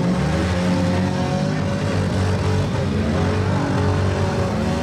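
Engines of several stock compact demolition derby cars running and revving together, their pitch rising and falling as the cars manoeuvre.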